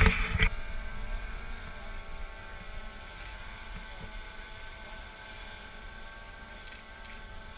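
Small multirotor drone whirring steadily, its propellers giving a buzzing whine with many even tones. A short loud knock comes right at the start.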